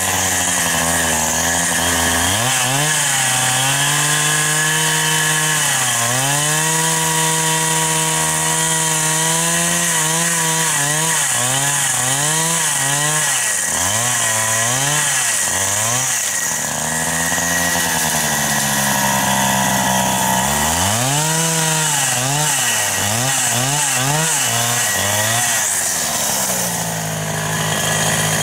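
Two-stroke gasoline chainsaw cutting small trees, its engine repeatedly revving up and dropping back, with quick bursts of throttle in places.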